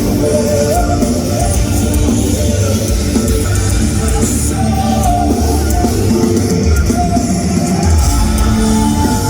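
Rock band playing live, loud and continuous, with heavy drums, bass and distorted guitars.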